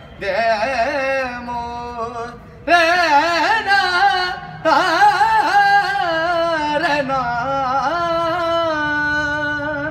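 A man singing solo without accompaniment: long held notes with wavering, gliding pitch ornaments, in a few phrases with short breaths between them.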